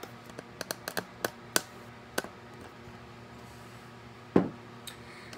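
Handling noise as a phone camera is moved around acrylic makeup organizers: a quick run of light clicks and taps, then one louder thump about four and a half seconds in.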